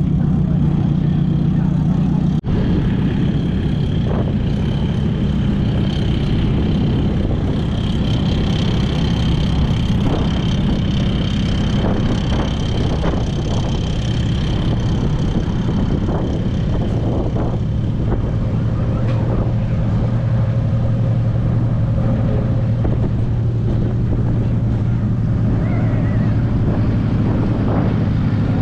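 A vehicle engine running steadily at a low, even pitch, with a brief dropout about two and a half seconds in; past the middle the engine note settles lower.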